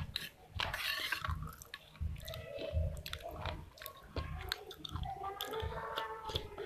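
A person chewing a spoonful of wet clay paste, with moist mouth clicks and a steady chewing rhythm of a little more than one chew a second.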